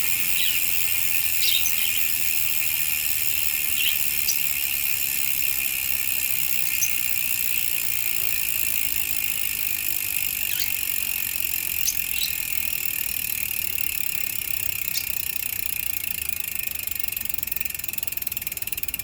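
Bicycle rear hub's freehub buzzing as the rear wheel spins freely: the six pawls of the Sagmit Evo 3 hub give a dense, steady ratcheting that slows into separate clicks near the end as the wheel winds down.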